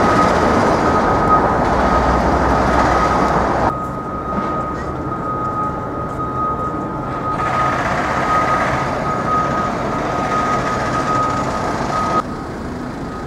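City street traffic noise with a steady high whine running through it. The traffic noise drops away about four seconds in, swells again a few seconds later and eases off near the end.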